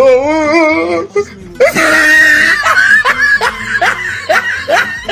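Human voice wailing and laughing: a wavering, drawn-out cry for about a second, then a shrill noisy outburst, then a string of short rising cries at about two a second.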